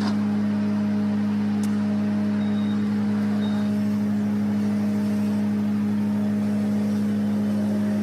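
A vehicle engine running at a steady speed, a constant low hum that holds one pitch throughout.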